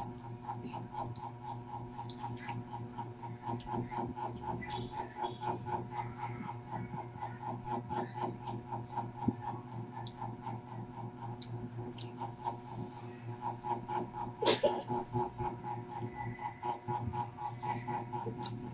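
Eating sounds: hands tearing fried chicken, chewing and scattered light clicks on plates, a louder click about two-thirds of the way through. Under them runs a steady mechanical hum with a fast, regular pulse.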